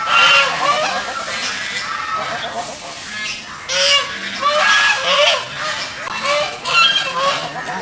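Several geese honking, their calls overlapping in quick repeated bursts.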